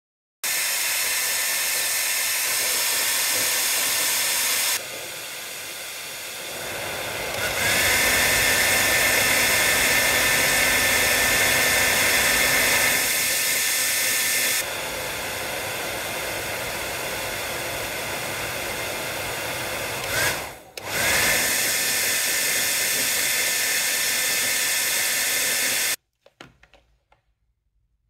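Hair dryer blowing steadily. It grows weaker and stronger a few times, with a thin whine in the stronger stretches. It dips briefly about twenty seconds in and cuts off sharply near the end.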